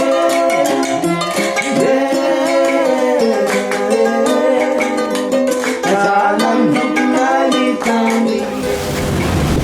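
Background music: strummed plucked strings with a singing voice. Near the end the music stops and a steady rushing noise of wind and sea takes over.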